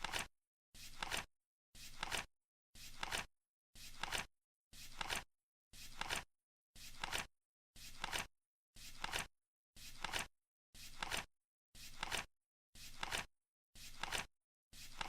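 Flip clock's number flaps turning over once a second as the countdown's seconds tick by: each flip a short rustle ending in a quick double click, with silence between.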